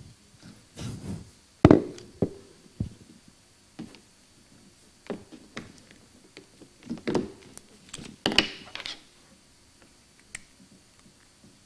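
Irregular knocks, taps and clicks from equipment being handled near the microphone, the loudest a thud a little under two seconds in and a brief rustling cluster a little past eight seconds.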